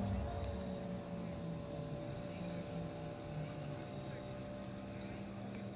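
A steady low hum made of a few unchanging tones, over a light background hiss.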